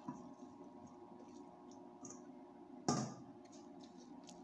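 Utensil working pasta into cheese sauce in a pot: soft scattered clicks, with one louder clank about three seconds in, over a steady hum.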